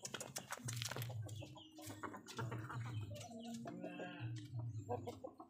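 Chickens clucking faintly, with scattered short clicks.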